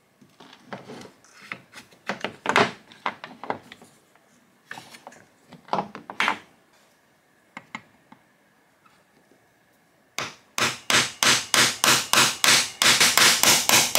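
Plastic clamp heads and steel clamp bars knocking and clattering as they are handled and set down on a wooden bench. About ten seconds in comes a quick run of sharp hammer strikes on a steel punch, about four a second, driving the roll pins out of the clamp bars.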